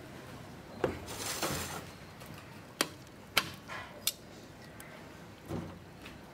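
Metal cooking tongs clicking against a pot, four sharp clicks spread over a few seconds, with softer handling noises from turning the food in the broth between them.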